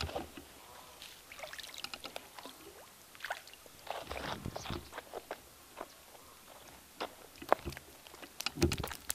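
A small hooked fish splashing at the surface of a pond as it is pulled out of the water, then slapping and flopping on concrete near the end.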